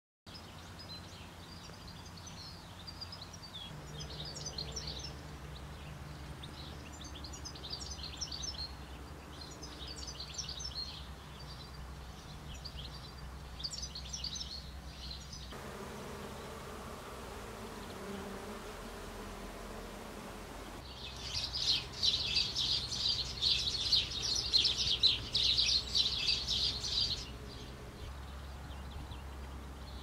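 Vineyard countryside ambience: birds sing in short high phrases for the first half, then insects buzz for a few seconds. A loud, dense stretch of rapid high chirping follows, with a steady low rumble underneath throughout.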